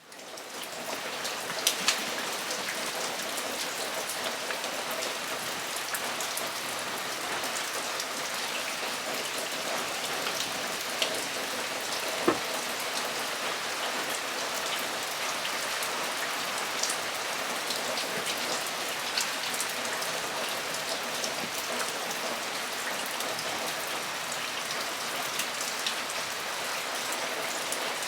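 Torrential rain drumming on a metal roof: a steady dense hiss of rain with sharp ticks of single heavy drops hitting the sheet metal, a few of them louder. It fades in over the first second.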